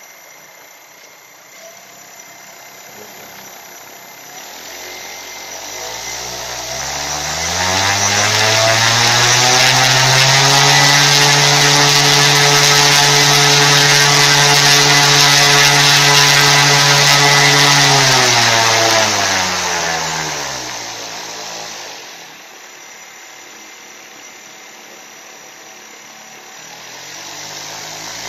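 Homemade 320 kV brushless motor driving a 21x10 propeller, throttled up from low speed with a rising whine, held at full speed for about ten seconds, then wound down. Near the end it starts spinning up again.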